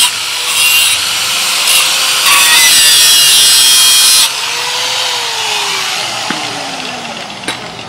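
Makita angle grinder with a cut-off disc cutting through stainless steel exhaust tubing, a loud high-pitched grinding that eases off briefly twice. About four seconds in the cutting stops and the motor winds down with a falling whine, and a single knock follows near the end.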